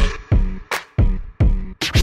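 Electronic dance music with a heavy kick drum at about three beats a second, sharp high percussion hits between the beats, and a held bass line.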